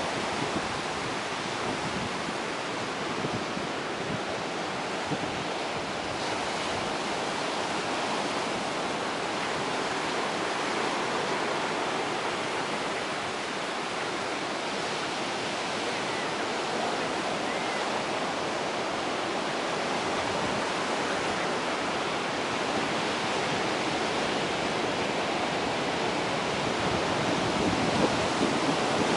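Ocean surf breaking and washing in over a rocky shore: a steady rushing wash that swells and eases slowly.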